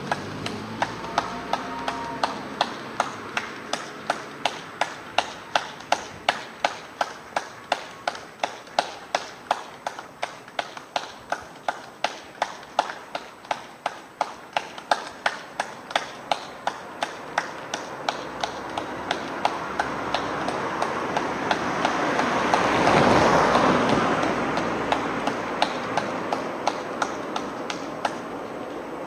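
Steady, evenly paced hand clapping close by, about two to three claps a second, over a background of more distant clapping. A broad rushing sound swells up and fades away about three quarters of the way through.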